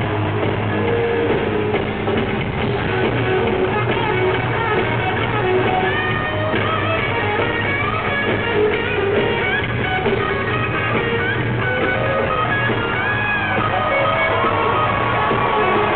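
Live rock band playing loudly, electric guitar to the fore, heard from within the audience. From about six seconds in, melodic lines that slide in pitch rise above the band.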